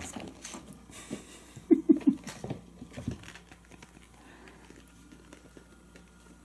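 Kittens clambering and scrabbling over a person's lap, light paw pats and cloth rustling, with three short quick low sounds a little under two seconds in. It turns quieter after about three seconds.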